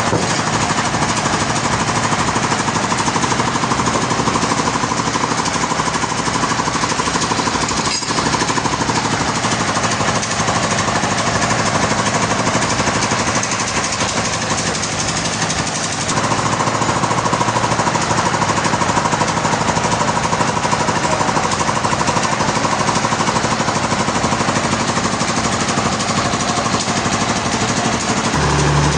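Sawmill saw running through a large hardwood log: a loud, steady mechanical noise with a fast rattle, its tone shifting slightly a couple of times.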